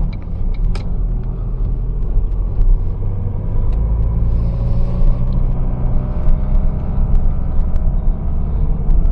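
Car driving on a town street, heard from inside the cabin: a steady low engine and tyre rumble, with the engine note rising a little about halfway through.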